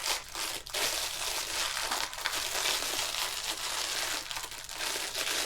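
Plastic packaging bag crinkling and crackling as hands try to get it open.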